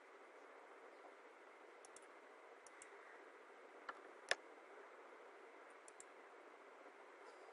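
Near silence with faint hiss, broken by a few faint computer mouse clicks, mostly in pairs; the loudest is a sharp click a little over four seconds in.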